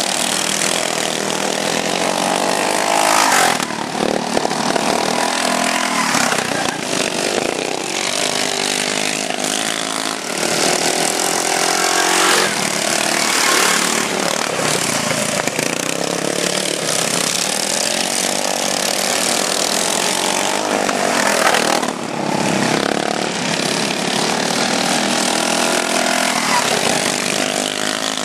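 Several racing riding lawn mowers running hard on their small engines, their pitch repeatedly rising and falling as they rev through the corners.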